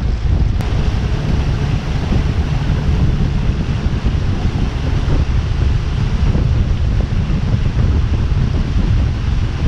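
Steady wind buffeting the microphone, a loud low rumble without a break.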